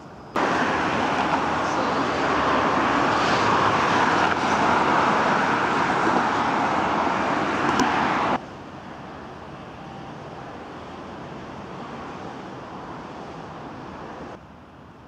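Steady rushing road traffic noise, loud for about eight seconds, then cutting off abruptly to a quieter hiss that drops again near the end.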